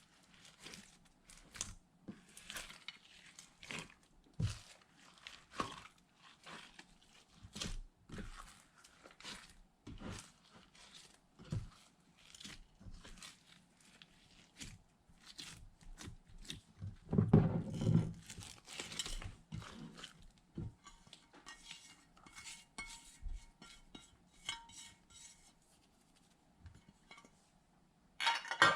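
Slime being kneaded, stretched and pressed by hand, giving a long run of short, sticky clicks and crackles. It turns briefly louder and fuller a little past the middle.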